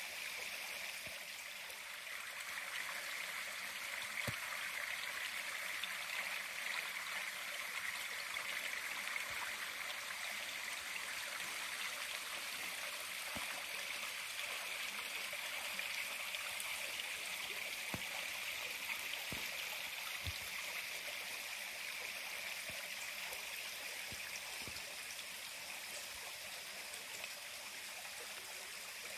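A small creek running steadily over rocks, an even wash of flowing water.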